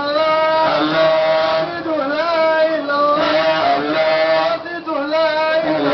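A man's voice singing in long held notes that bend and waver, phrase after phrase with short breaks between.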